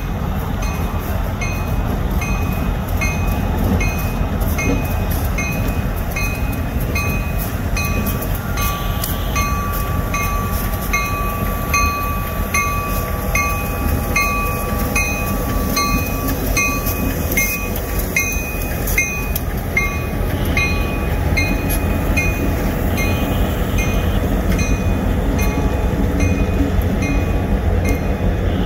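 Union Pacific diesel locomotives rumbling past at low speed and pulling freight cars, with a grade-crossing bell dinging steadily a little under twice a second. A thin steady high tone sounds for about ten seconds in the middle.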